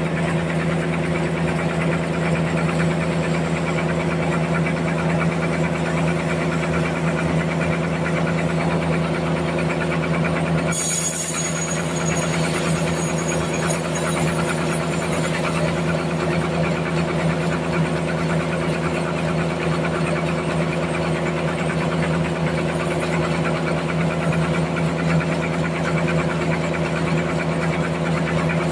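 Large band sawmill running and sawing through a big trembesi (rain tree) log, its motor and blade making a steady, loud hum. The high hiss changes sharply about a third of the way in.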